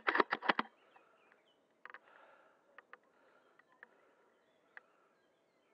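A quick run of five or six sharp clicks in the first half-second, then single clicks spaced about a second apart, with faint bird chirps in the background.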